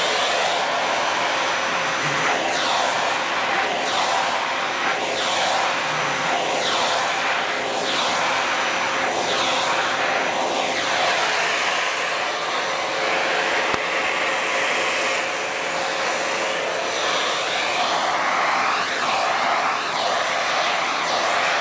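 Vacuum cleaner running with a steady motor whine, the rush of air changing every second or so as the suction shifts.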